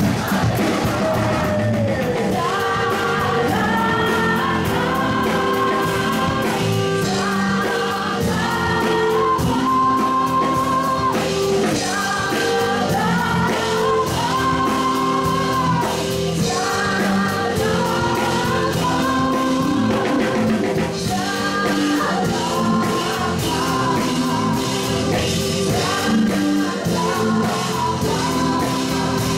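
Live amplified worship song: a choir and a female lead singer singing together over a band with guitars.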